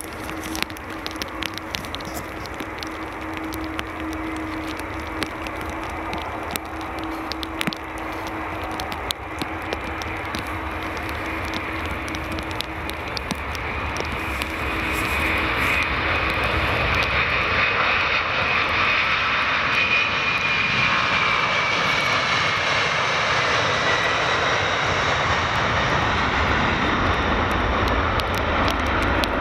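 McDonnell Douglas MD-11's three jet engines at takeoff power on the takeoff roll, growing steadily louder as the airliner comes nearer. A little past the middle a high whine falls in pitch as it draws level.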